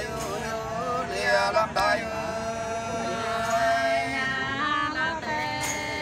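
Unaccompanied Nùng sli folk singing: voices sing a few short syllables, then hold long, slightly wavering notes.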